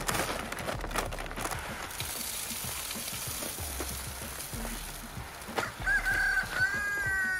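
Dry poultry feed with cracked corn poured from a paper feed sack into a plastic chicken feeder: a steady rushing hiss of falling grain. A few short pitched calls come in near the end.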